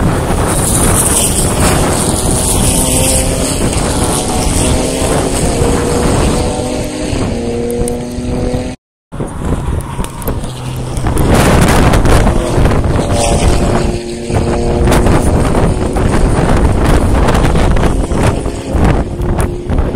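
Racing cars' engines going by at speed on a circuit, a loud roar with engine notes climbing in steps through gear changes. The sound breaks off for a moment about nine seconds in, then more cars pass, loudest about twelve seconds in.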